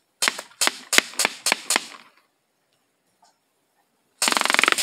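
Full-auto AR-15-style BB gun firing: six separate sharp shots over about a second and a half, then near the end a fast full-auto burst.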